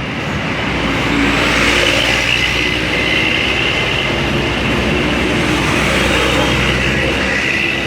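A large bus passing close by: a loud, steady rush of engine and road noise that swells about a second in.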